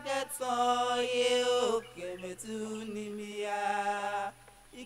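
Chanted singing: a voice holding long, steady notes in two phrases, with a brief break near the end.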